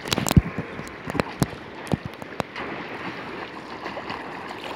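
Seawater splashing and sloshing around a swimmer moving through small waves, with several sharp splashes in the first two and a half seconds, then a steady wash of water.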